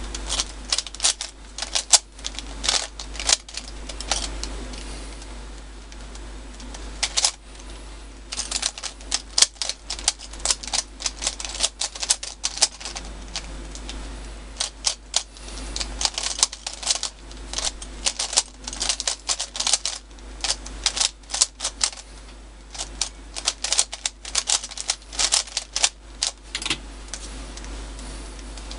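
MoYu Weilong 3x3 speedcube turned at speed during a timed solve: rapid, irregular runs of plastic clicking and clacking as the layers turn, with a few short lulls between runs.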